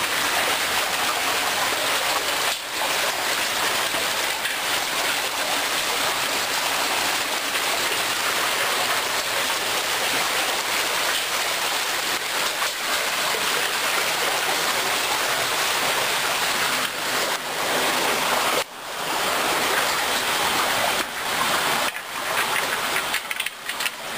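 Steady rushing of a rocky forest stream flowing among and under boulders, dipping briefly about three-quarters of the way through.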